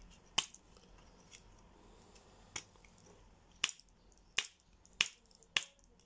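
Sharp plastic clicks as a 3D-printed bit holder for Leatherman bits is handled: about six separate clicks at irregular intervals.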